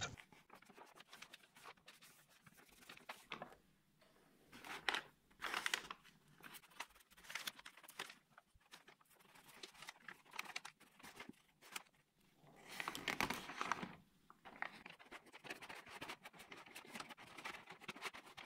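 Thin Japanese washi paper rustling and crinkling in short, irregular bursts as hands press and handle it on a paper lantern, with a small glue brush dabbed against the paper.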